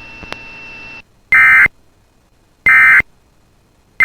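Emergency Alert System end-of-message (EOM) data bursts marking the close of the alert. They are short digital bursts about a third of a second each, repeated about every 1.35 s: two in full, and a third starting right at the end. Before the first burst there is a faint hiss with a thin steady high tone.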